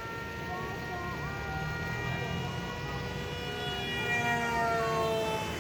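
Radio-controlled Su-37 model jet whining as it passes low. The whine gets louder and its pitch drops as it goes by near the end.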